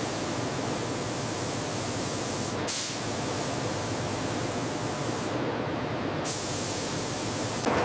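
A steady, even hiss. Its higher part drops out briefly about a third of the way in and again for about a second past the middle.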